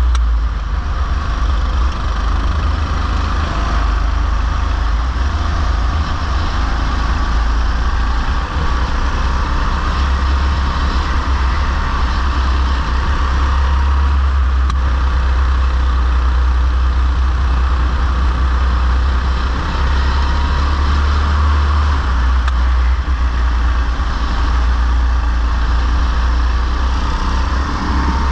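Go-kart engine running steadily at racing speed, heard on board the kart, with a strong, constant low rumble.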